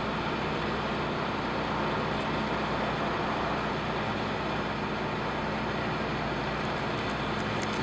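Steady rumble and hiss of distant road traffic, with a low, even hum underneath.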